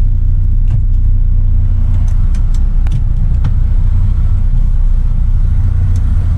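Semi truck's diesel engine idling, a steady low rumble, heard from inside the cab. Scattered clicks and knocks come from the cab's fittings being handled, with a latch click near the end as the driver's door handle is pulled.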